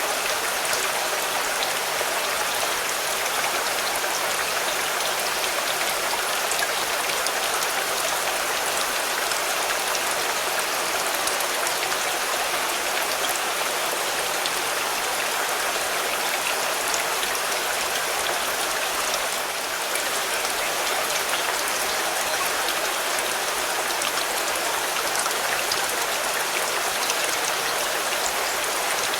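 Steady rain falling on a car, a dense even hiss of drops with fine individual ticks.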